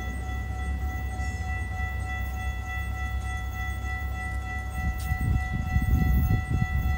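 Distant train running, a low steady rumble under a steady high ringing tone, growing louder and rougher about five seconds in.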